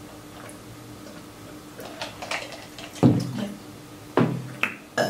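A person hiccuping: two loud, sudden hiccups about a second apart in the second half, then a smaller one just after, with faint eating clicks before them.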